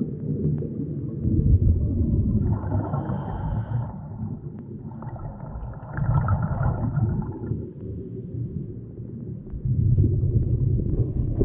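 Muffled underwater noise picked up by a submerged camera moving through lake water: a continuous low rumble, with two longer stretches of a higher, faintly pitched sound about two and a half and five seconds in.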